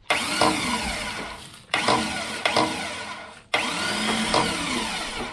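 Electric hoist driven by a 12-volt Toyota VDJ79-series starter motor whining as it winches an engine up on its chains. It runs in three bursts, each starting abruptly and lasting about a second and a half to two seconds.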